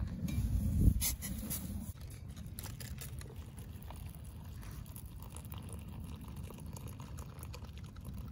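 Water at a full boil, bubbling steadily. A louder low rumble with a few knocks fills the first two seconds.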